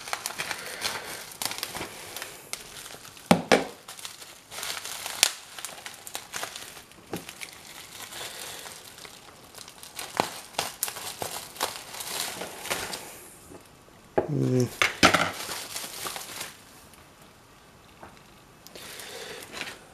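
Bubble wrap being pulled open and handled by hand, crinkling and crackling irregularly, with a louder spell about three-quarters of the way through and quieter handling near the end.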